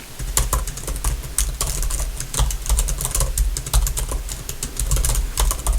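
Fast, continuous typing on a computer keyboard: many quick, irregular keystroke clicks, each with a soft low thud.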